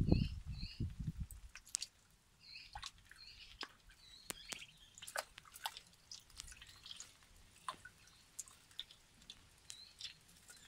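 Muscovy ducklings dabbling and drinking at a water tub: scattered small drips and splashes from their bills, with clusters of short, soft, high peeps now and then. A brief low rumble sounds in the first second.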